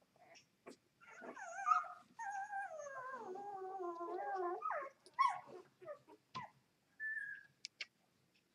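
Two-day-old Vizsla x Labrador puppies whimpering and crying: a short whine about a second in, then a long wail that falls in pitch over about two and a half seconds, and a brief high squeak near the end, among small clicks.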